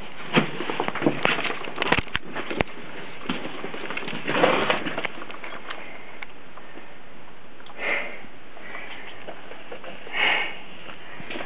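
A handheld camera being moved about in a bunker tunnel: clicks, knocks and scuffs of handling and footsteps on debris over the first few seconds, then a few short breathy noises, over a steady hiss.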